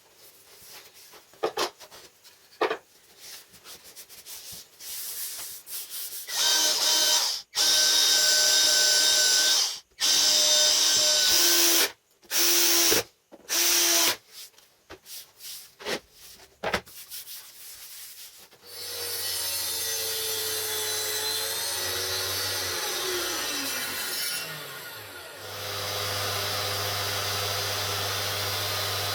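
Workshop power tools: a few light clicks and knocks, then a high-pitched power tool run in several bursts of a few seconds each. Then an electric motor runs steadily, is switched off and winds down with a falling pitch, and starts up again.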